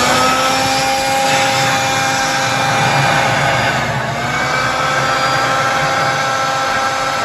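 Handheld electric air blower running at full speed: a steady motor whine over a rush of air, briefly dipping in speed about four seconds in. It is blowing air into the engine through the oil filler opening to push the last of the old oil out of the drain-bolt hole.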